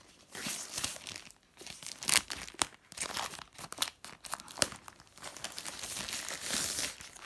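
Plastic packaging wrap crinkling and tearing as it is pulled open by hand, in irregular rustles with a few sharp crackles.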